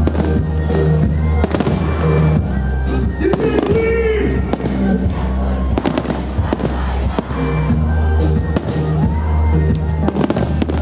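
Aerial firework shells bursting in quick succession, many sharp bangs, over loud music with a steady bass line.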